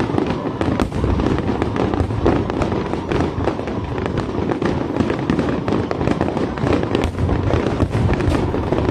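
Aerial fireworks bursting in a dense barrage: many sharp bangs and crackles a second, overlapping without a break.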